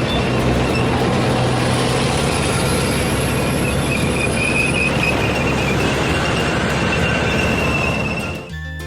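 Heavy machinery sound effect: a steady loud mechanical rumble with a high metallic squeal over it, easing off near the end.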